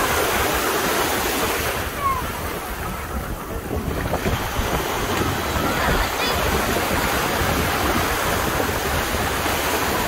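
Shallow surf breaking and washing around the pilings under a pier: a steady rush of water that eases about two to four seconds in and builds again, with wind noise on the microphone.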